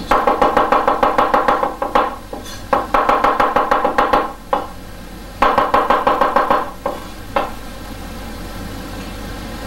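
Chinese cleaver rapidly chopping garlic on a wooden cutting board, about six strokes a second in three runs of a second or two, with a few single strikes between. The chopping stops a little over two seconds before the end.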